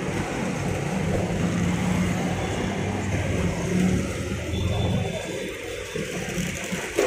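Samsung washing machine running with a steady low hum from its motor and drum, fading away about five seconds in.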